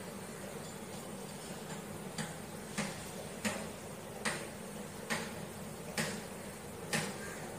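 A regular series of sharp clicks, a little under one a second and slowly spacing out, over a faint steady hum.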